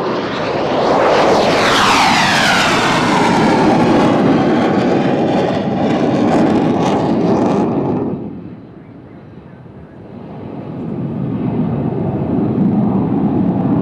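Jet fighter at full power passing by on its takeoff run. The loud jet noise sweeps down in pitch as it passes, drops away sharply about eight seconds in, then builds again toward the end.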